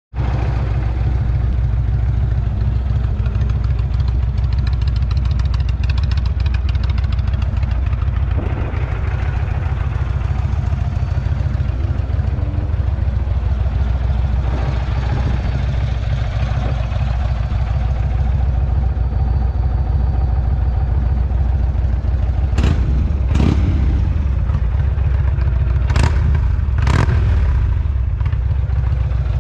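2019 Indian Chief Dark Horse's Thunder Stroke 111 V-twin idling steadily through an aftermarket Rinehart exhaust, with a few short knocks in the last seven seconds.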